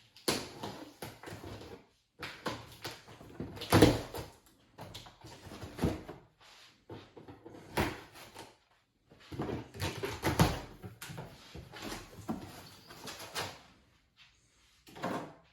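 Cardboard shipping box being handled and opened: repeated scraping and rustling with sharp knocks, in spells broken by short pauses.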